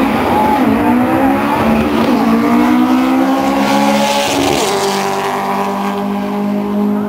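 Volkswagen Beetle drag car accelerating hard down the strip at full throttle, its engine pitch climbing steadily and then dropping sharply at a gear change about four and a half seconds in.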